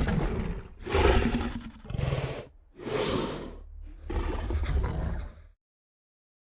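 Movie-style dinosaur roar sound effects: a roar trailing off, then three more separate roars and growls in a row, each deep and rumbling, the last stopping about five and a half seconds in.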